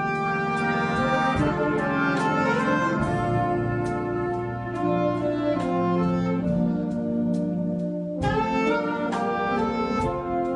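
Military concert band playing, with a saxophone solo over sustained brass and a steady percussion beat; the music breaks off briefly about eight seconds in and resumes.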